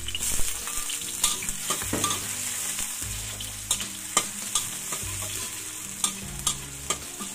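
Chopped garlic and shallots sizzling in hot oil in a stainless steel wok, with a metal spatula scraping and clicking against the wok as they are stirred.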